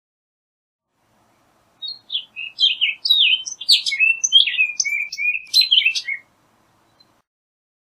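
Orchard oriole singing: one rapid, jumbled song phrase of quick notes jumping up and down in pitch, starting about two seconds in and lasting about four seconds.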